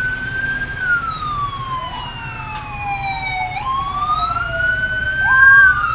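Police siren wailing: slow rising and falling sweeps of a few seconds each, with a second overlapping wail.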